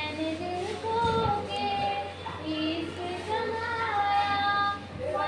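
A girl singing solo without accompaniment, holding long notes and sliding smoothly between pitches.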